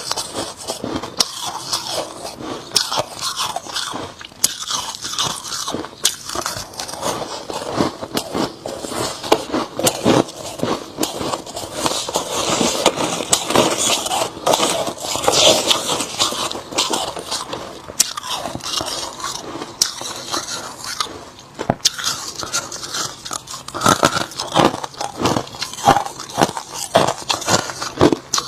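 Hard crushed ice being bitten and chewed close to the microphone: a dense, steady stream of sharp crunches, with no pause.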